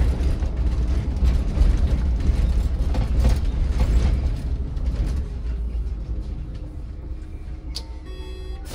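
City bus driving: a steady low rumble of engine and road, with rattles and creaks from the bus body, getting quieter over the last few seconds. Near the end there is a click and then a short electronic beep.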